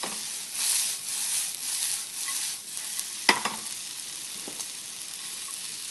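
Potato gnocchi and freshly added sliced mushrooms sizzling in oil in a hot sauté pan, the frying hiss swelling louder in surges over the first two or so seconds as the pan is tossed. A single sharp knock a little after three seconds in.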